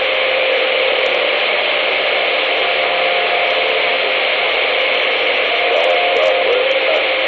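CB radio receiver hissing with steady band static, with faint, wavering whistles from distant signals drifting in and out under the noise.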